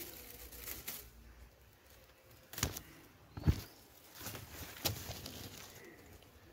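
Garden leaves and vine stems brushing and rustling against a handheld phone, with a few sharp handling knocks; the loudest comes about halfway through.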